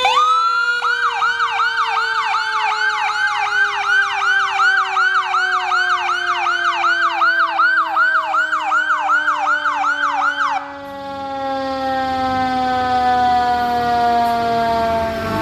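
Fire engine's dual siren: an electronic siren cycling in a rapid up-and-down yelp, about three sweeps a second, with a Federal Q mechanical siren under it. The Q winds down with slowly falling pitch after being spun up. The electronic siren cuts off about ten seconds in, leaving the Q alone, still falling in pitch.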